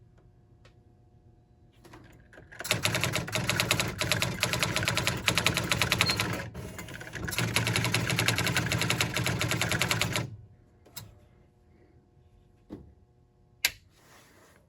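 Sears Electronic Communicator 2 daisy wheel typewriter printing, its print hammer striking characters in a fast, even run for about eight seconds with a brief break midway. A few single clicks follow, and a sharper click comes near the end.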